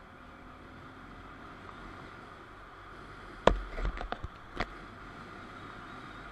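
Steady engine and road noise of a motorcycle on the move. About three and a half seconds in there is a quick run of sharp knocks lasting about a second, and the first knock is the loudest.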